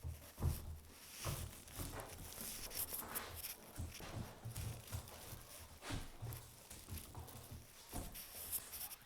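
A puppy scuffling, jumping and biting at a toy: irregular rustling and scraping with many light thuds and knocks.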